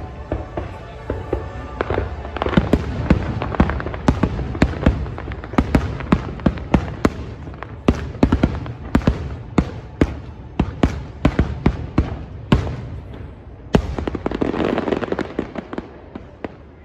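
Fireworks going off in rapid succession, many sharp bangs and booms over music, ending in a crackling stretch that fades away near the end.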